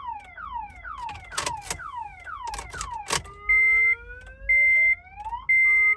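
Car alarm siren cycling through its tones. For about three seconds it gives fast repeated falling chirps, then it switches to slow rising whoops broken by a steady high beep about once a second. A few sharp clicks come near the middle. The alarm is going off during immobilizer key programming, and the locksmith thinks it is interfering with the programming.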